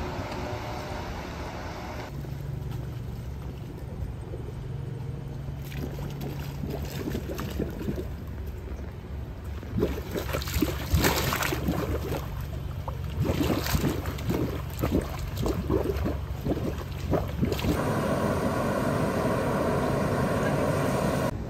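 A run of short hot-spring clips: water splashing from a spring-fed fountain, then irregular bubbling and splashing, then a steady hiss of steam billowing off a hot-spring pond.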